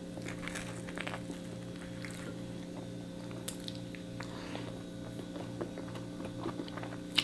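A person chewing a mouthful of toasted-bread sandwich with lettuce, picked up close: scattered soft crunches and wet mouth clicks over a steady low hum.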